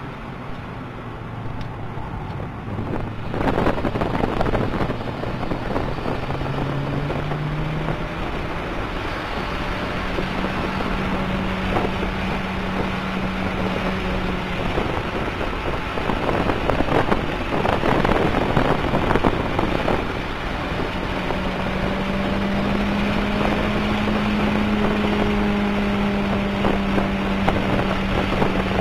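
Toyota MR2 Turbo's turbocharged four-cylinder engine heard from inside the cabin while lapping a race track, with steady road and wind noise. The engine note climbs as the car accelerates, holds, goes rougher and noisier for a few seconds in the middle, then climbs and holds again near the end.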